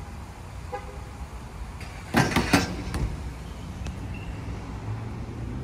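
BMX bike tyres rolling on a concrete skatepark, a steady low rumble, with a loud clatter of hits about two seconds in, like a landing.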